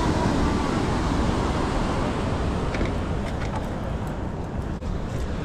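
Wind rumbling on the microphone over the steady wash of surf, easing a little about halfway through, with a few faint clicks in the second half.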